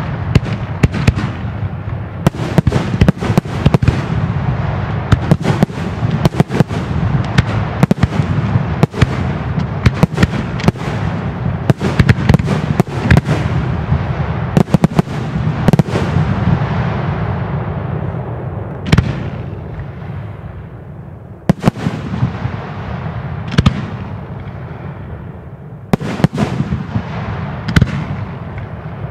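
A fireworks display: a dense, rapid run of bangs with continuous crackling for about the first 18 seconds. It then thins to scattered single bangs as the crackle dies away.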